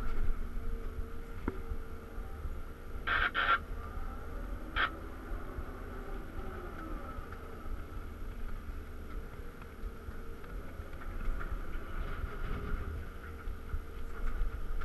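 Cat 323 excavator's diesel engine and hydraulics running while the machine digs, swings and dumps, heard from inside the cab as a steady low rumble with a steady whine. Three short, sharp high chirps come about three to five seconds in.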